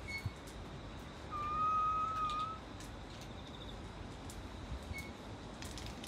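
One long whistled note, held steady for just over a second and rising slightly at the end, over faint outdoor background noise.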